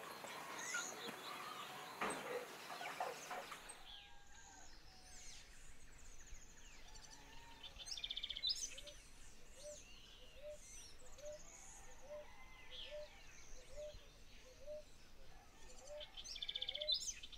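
Faint outdoor ambience of several birds chirping, with quick high trills. From about halfway, a short low rising call repeats about every 0.7 seconds.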